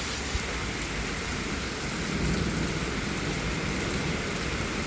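Heavy rain pouring steadily in a windy storm, with a low rumble that swells about two seconds in.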